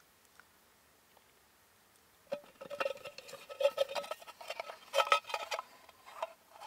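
Near silence for about two seconds, then a run of light clicks, taps and rubbing of wood on wood with a few brief squeaks as the carved wooden spiral potato-cutter base is handled.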